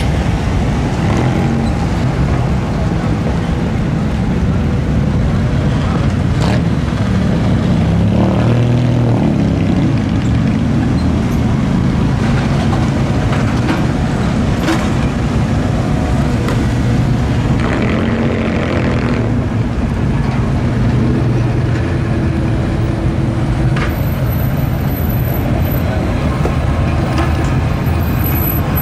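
Classic cars and pickups driving slowly past, their engines running with a steady low sound; an engine note rises and falls briefly twice as vehicles go by.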